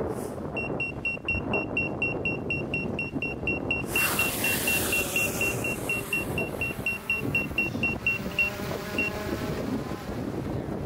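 A rapid series of short electronic beeps on one high pitch, about five a second, slowing a little about four seconds in and stopping near the end, over a steady rumbling noise that grows hissier about four seconds in.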